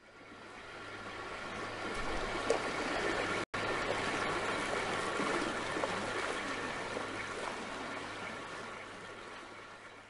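Running water, a steady rushing and trickling with a low steady hum underneath. It fades in at the start, cuts out for an instant about three and a half seconds in, and fades out at the end.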